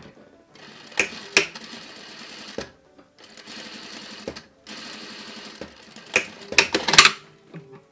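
Sewing machine stitching through stiff horsehair braid in three short runs, stopping and starting again, with a few sharp clicks near the start and near the end of the last run.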